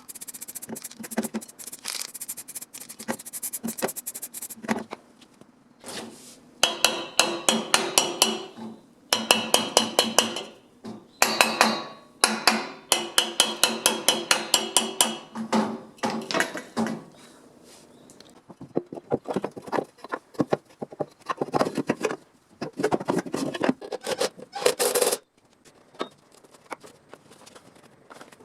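Hammer blows on metal in quick runs of several strikes a second, each with a ringing tone, stopping and starting every few seconds.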